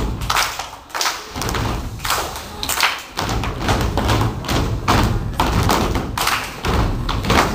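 A group of children stepping: feet stomping on a wooden stage floor in a steady run of thuds and taps.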